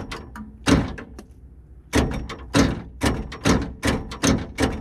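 The electric door lock of a 1978 Chevrolet El Camino is being cycled with its switch: one clunk, then from about two seconds in a quick run of clunks, about three a second, as the lock works up and down. Cleaning corrosion off the connections and greasing the assembly has set it working consistently.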